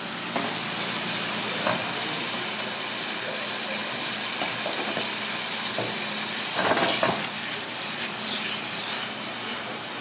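Tomato pieces and butter sizzling in hot oil in a small frying pan, a steady hiss with a few light clicks and a louder burst about seven seconds in.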